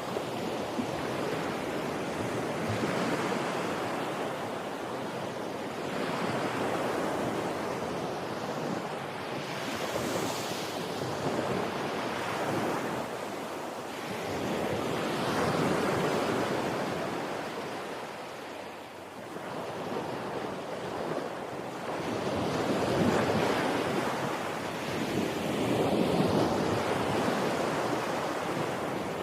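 Ocean waves breaking and washing ashore, the rush of surf swelling and fading every few seconds.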